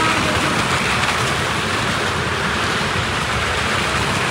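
Engines of stunt motorcycles and cars running round the wall of a Well of Death, a loud, steady din with no breaks.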